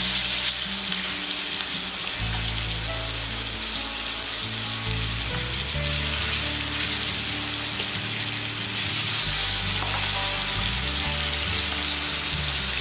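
Spice-marinated chicken pieces frying in hot oil in a pan, a steady sizzle as each piece is lowered in with a spoon.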